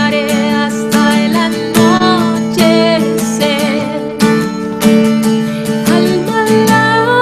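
A woman singing a worship song while strumming chords on an acoustic guitar, her voice holding long, wavering notes over the strums.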